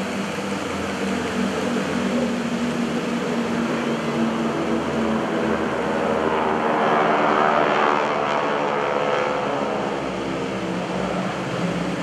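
A formation of North American SNJ/T-6 Texan trainers flying past, their nine-cylinder Pratt & Whitney R-1340 radial engines droning together. The sound swells to its loudest about seven to eight seconds in as the planes pass closest, then eases off.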